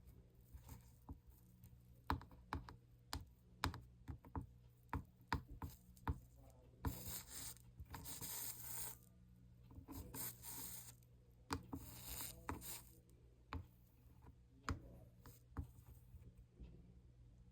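Light taps and clicks of a soldering iron and solder wire working the copper-foiled seams of a stained glass panel. Three stretches of hiss, each a second or two long, come from flux sizzling as 60/40 solder melts under the iron. A faint steady hum runs underneath.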